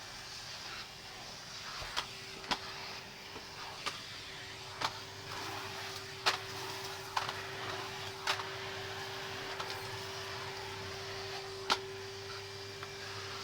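Vacuum cleaner running steadily with a constant motor whine and airflow hiss, and about eight sharp clicks scattered through it.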